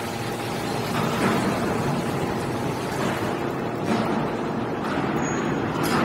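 Hydraulic scrap-metal baler running steadily as its ram compresses metal shavings into a bale, with a few knocks from the press.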